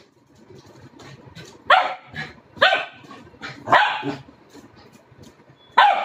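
Four-month-old Labrador retriever puppy barking in play: a run of about five short barks, beginning a couple of seconds in and spaced roughly a second apart.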